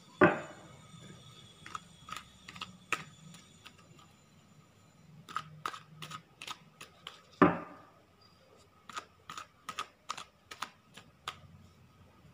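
Hands handling a tarot deck and artificial flowers on a cloth-covered table: a scatter of light clicks and taps, with two louder knocks about a third of a second in and again about seven and a half seconds in.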